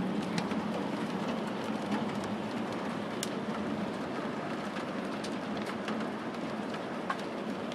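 Hail coming down steadily in a continuous rush, with scattered sharp ticks of individual hailstones striking.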